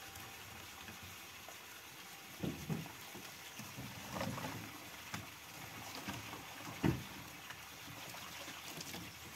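Distant water sloshing and scattered knocks and thumps of plastic buckets being handled as fish are netted out of a barrel into buckets, the loudest thump about seven seconds in.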